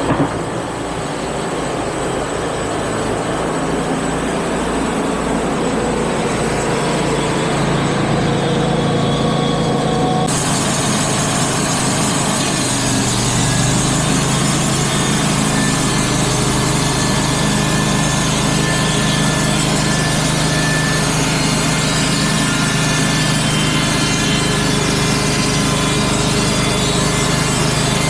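Wood-Mizer portable band sawmill running steadily. About ten seconds in, a higher, hissing noise joins and the low engine note changes soon after, as the band blade goes into the log and cuts.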